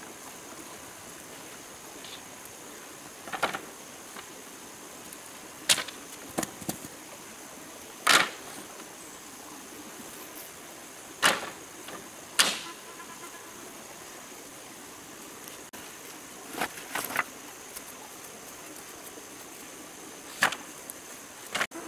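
Bamboo poles and slats knocking and clacking against each other as they are handled and fitted to a bamboo shelter frame: about ten separate sharp knocks spaced irregularly, the loudest about eight seconds in, over a steady faint hiss with a thin high tone.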